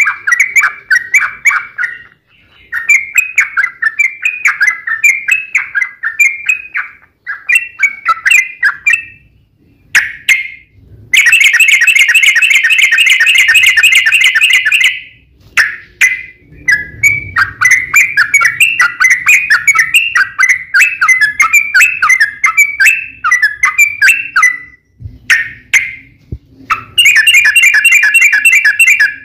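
Yellow-vented bulbul (trucukan) song: loud, quick chattering phrases broken by short pauses, with a long rapid trill about 11 seconds in and another near the end. This is the agitated, fighting-style song used to provoke other bulbuls into answering.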